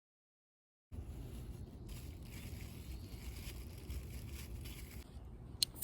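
Steady low outdoor background rumble with faint hiss, starting after about a second of silence, with a short click near the end.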